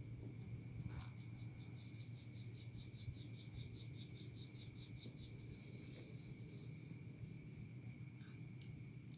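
Faint background noise: a steady high whine over a low hum. About a second in, a run of soft, quick ticks starts, about five a second, and fades out some four seconds later.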